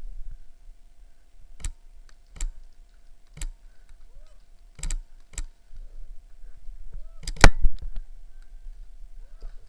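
Scattered single sharp snaps of airsoft gunfire and BB hits, about seven in all, uneven in spacing. There is a quick pair near the middle, and the loudest snap comes about three-quarters of the way through.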